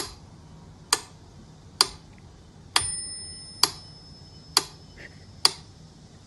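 Mechanical metronome ticking steadily, about one tick a second. After one tick, about a third of the way in, a thin ringing tone carries on for a couple of seconds.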